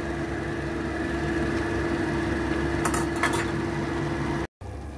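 Steady low kitchen hum with a faint steady tone, and two quick metal clinks of a spatula against the wok about three seconds in. The sound drops out for an instant near the end.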